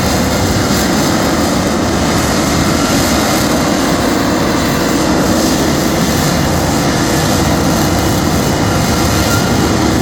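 Lockheed Martin F-35 Lightning II's jet engine, a Pratt & Whitney F135 afterburning turbofan, heard as a loud, steady roar of noise that holds without rising or falling.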